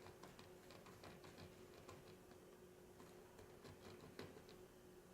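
Near silence with faint, irregular light clicks and taps from a paint pen marking a rubber stall mat along a straight edge, several a second at first and sparser later, over a faint steady hum.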